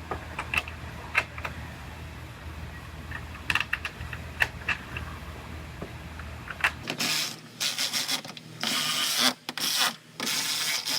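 Scattered small clicks and taps of hand work fitting tail-light mounting nuts. Over the last four seconds come several louder rasping bursts.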